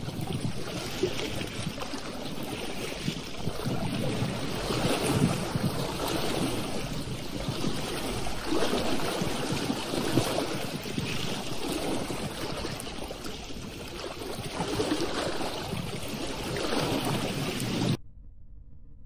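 Wind and choppy lake waves lapping in irregular swells, with wind buffeting the microphone. The sound cuts off abruptly about a second before the end.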